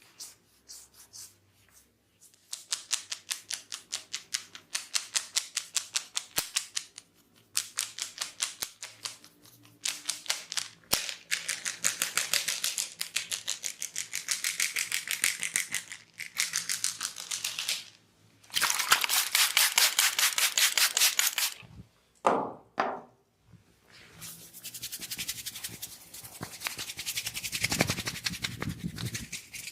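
A barber's hands rubbing fast through the hair and over the scalp in a head massage: quick scratchy strokes at about five a second, in runs of a few seconds broken by short pauses.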